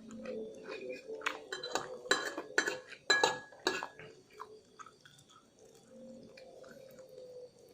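Cutlery clinking and scraping against a dish while eating. A quick run of sharp clinks comes in the middle few seconds, one of them ringing briefly.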